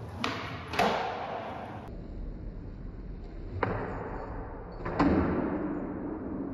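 Skateboard rolling on hard ground with four sharp cracks of the board: two in the first second, about half a second apart, and two more about a second and a half apart later. These are the pops and landings of nollie heel flips.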